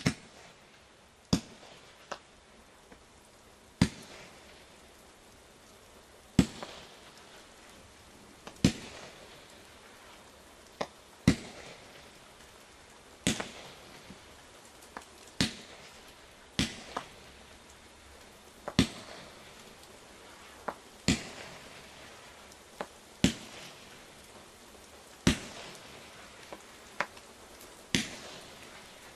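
Shogun 19-shot "Colour Falling Leaves" consumer fireworks cake firing shot after shot, sharp bangs about every two seconds, some coming in quick pairs. A faint crackling hiss carries on between shots.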